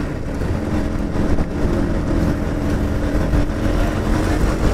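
KTM Duke 200's single-cylinder engine running steadily at cruising speed, heard from the rider's seat over a strong wind rumble on the microphone.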